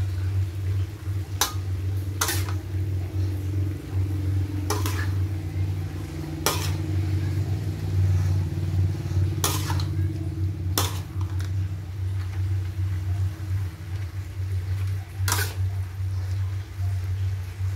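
A metal spatula clinks against a steel wok as vegetables are stir-fried: about seven sharp clinks spread through, over a steady low hum.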